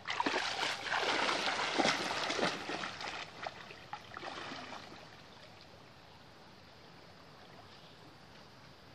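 Water splashing and sloshing as a person wades into a river, loudest for the first three seconds and dying away by about five seconds, after which only a faint steady hiss remains.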